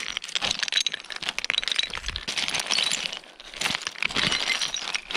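Thin, flat slate-like stone fragments clinking and knocking together under boots, in a rapid clatter. Many of the strikes ring briefly with a high, bell-like tone.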